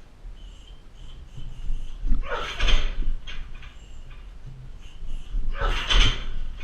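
Two kicks landing on a car tyre target mounted on a weighted boxing stand, each a heavy thud with a brief noisy smear, about three and a half seconds apart.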